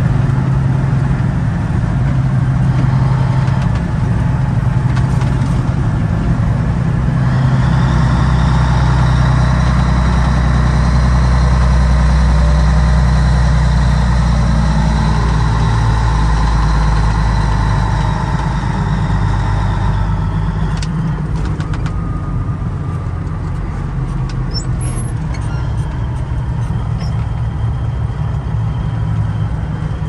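1986 Ford LTL 9000's Caterpillar diesel engine heard from inside the cab, running steadily under load on the road. It eases off about two-thirds of the way through, and a few light clicks follow.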